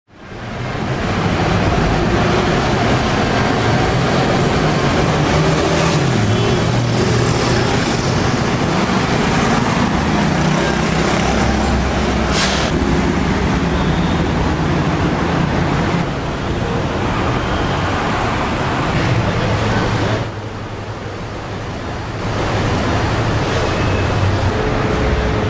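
City street traffic: the engines of cars, vans and buses running and passing in a steady, dense noise that fades in at the start. It drops to a softer level for a couple of seconds near the end.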